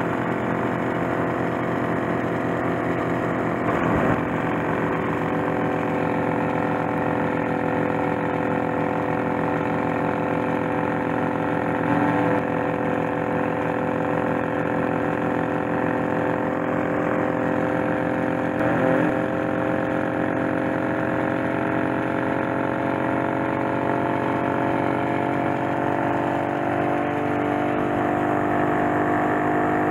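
Motorcycle engine running steadily at cruising speed, its pitch rising slowly over the last dozen seconds, with three brief thumps along the way.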